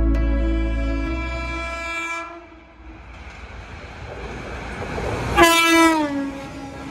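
Steady background music ends abruptly about two seconds in. An Indian Railways WAP-7 electric locomotive then approaches at about 130 km/h, its rumble building, and sounds one loud horn blast of under a second whose pitch drops as it passes, followed by the rush of the train going by.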